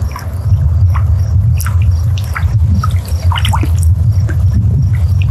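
Small splashes and drips of lake water, with scattered faint ticks, over a loud steady low rumble.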